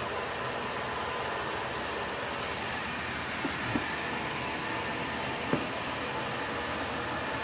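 Steady hiss of background noise with a faint hum, broken by a few soft clicks about halfway through.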